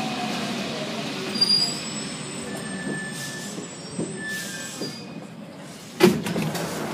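Rubber-tyred Paris Metro Line 1 train (MP 05) slowing into a station: a steady running rumble fading away, with thin high squeals from the running gear. A sharp knock about six seconds in.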